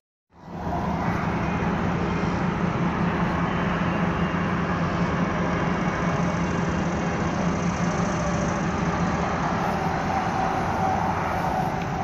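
Small tractor engine running steadily while driving, a constant low drone under a wide rushing noise; it cuts in after a brief dropout at the start.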